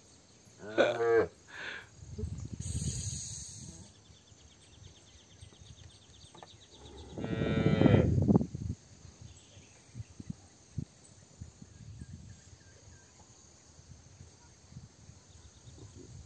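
Cattle mooing, loudest in one long moo about seven seconds in, with lower moos earlier; a faint insect trill runs in the background for a few seconds.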